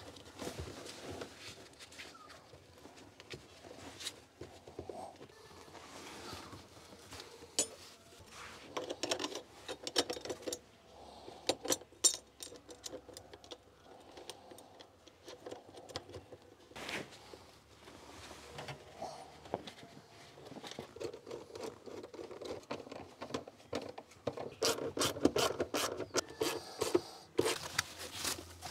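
Small parts of a Maruti 800 gear shift lever assembly being handled and fitted by hand: irregular clicks, scrapes and rubbing, with a few sharper clicks a third of the way in and a busier run of clicks near the end.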